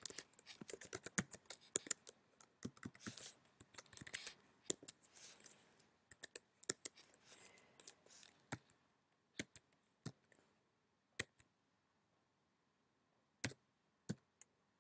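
Typing on a laptop keyboard, faint: a quick run of keystrokes for the first several seconds, then single taps and clicks spaced out over the rest.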